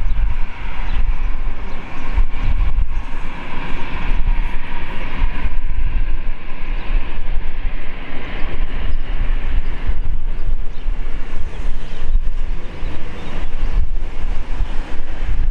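Jet engines of an Airbus A320-214 (CFM56 turbofans) running steadily, a whine held over a deep rumble.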